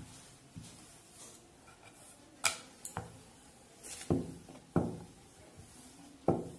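A wooden rolling pin rolling out a pea-stuffed kochuri on a board, with about six sharp knocks scattered through it where the pin strikes the board.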